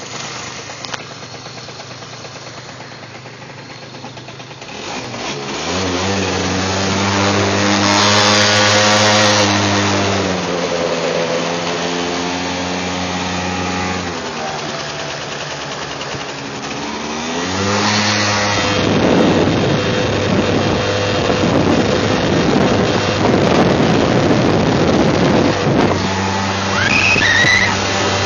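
Small gas motor scooter engine idling, then revving as the scooter pulls away: the pitch climbs, holds, drops back and climbs again. Past the middle a loud rushing noise, wind on the microphone while riding, mostly covers it until the engine comes through again near the end.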